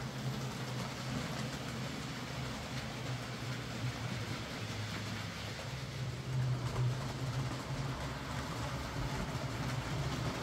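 Hornby J15 OO gauge model locomotive running on its track with a newly fitted motor: a steady low motor hum over a light rolling rattle of the wheels, running quietly and smoothly, a little louder about six seconds in.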